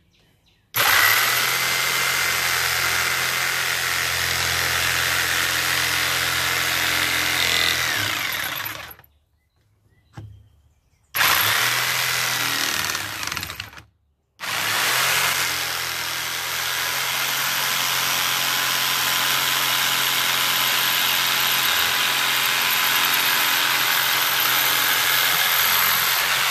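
Corded electric jigsaw cutting through a wooden board, its motor whining steadily over the rattle of the blade. It starts about a second in, stops and restarts twice with brief pauses around the middle, then runs on.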